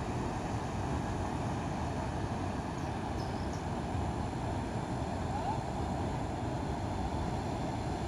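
Steady rushing of river water pouring over a low concrete weir, an even noise without breaks, strongest in the low range.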